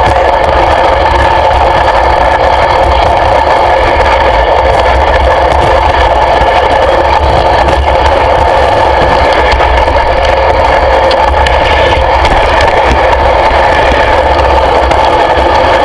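An engine running steadily and loudly at an even speed, with no change in pitch.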